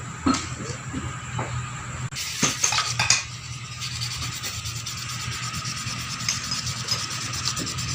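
A rag rubbing and wiping a small engine part clean, with a few scraping knocks about two and a half to three seconds in. A steady low hum runs underneath.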